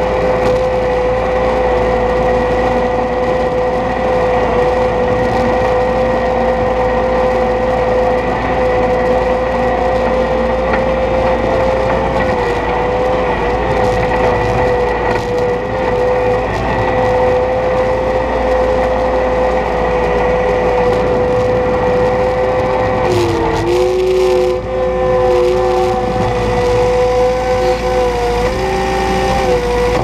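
Skid steer engine and hydraulics running steadily at high revs while plowing snow, with a constant whine. The pitch sags for a moment about three-quarters of the way through, then comes back up.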